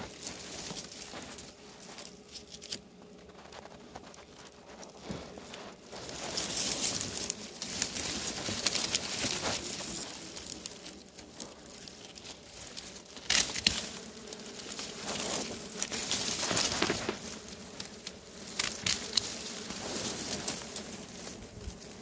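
Dry grass and thin stems rustling, crackling and snapping as they are cut and pulled aside by hand, with honeybees buzzing around an exposed comb. The rustling is light for the first several seconds, then louder, with a few sharp snaps.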